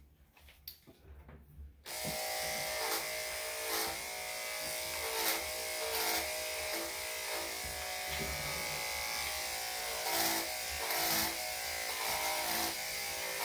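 Electric dog-grooming clippers switched on about two seconds in, then running with a steady hum as they are pushed through a Shih Tzu–Havanese's damp coat.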